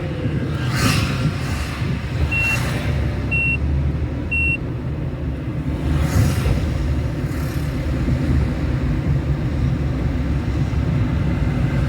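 Road traffic: a steady low rumble of engines and tyres, with several vehicles whooshing past one after another. Three short, high electronic beeps about a second apart sound in the first half.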